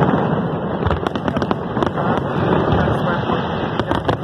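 Fireworks display with aerial shells bursting one after another: a continuous rumble of bangs with many sharp crackles over it.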